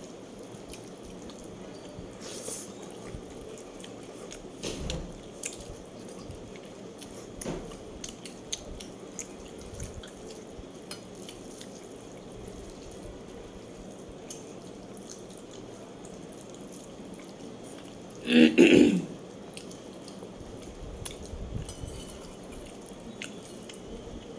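Close-up eating sounds: wet chewing and small mouth clicks scattered through, with one louder short burst about eighteen seconds in.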